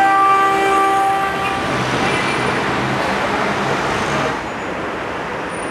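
Street traffic noise with a vehicle horn sounding one long, steady note at the start that dies away after about a second and a half. The traffic noise eases a little about four seconds in.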